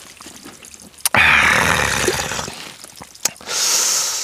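Spring water running from a trail spout, with a loud splashing gush starting about a second in and fading over the next two seconds, then a short hiss near the end.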